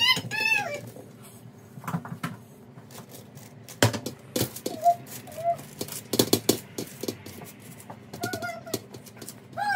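Granola mix of oats and nuts being tipped out and spread on a paper-lined oven tray: a quick run of clicks, rattles and clatters, busiest in the middle. A few short high-pitched squeals come at the start and again around the middle and end.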